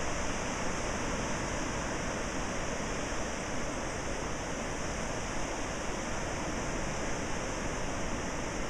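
Ocean surf breaking along a sandy beach, heard as a steady, even rush of waves.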